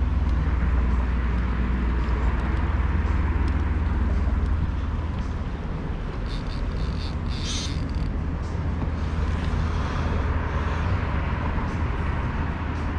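Steady low outdoor rumble with a hiss over it, and a brief high chirp about halfway through.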